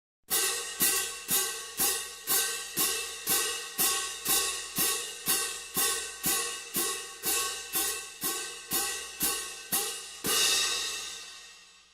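A cymbal struck in an even beat, about two strokes a second for some twenty strokes, each ringing briefly. A last stroke near the end is left to ring and die away.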